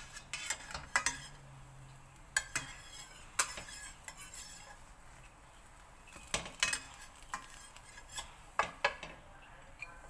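Metal spatula scraping and knocking against a stainless steel frying pan while a pancake is loosened and flipped: irregular sharp clinks and scrapes, coming in small clusters.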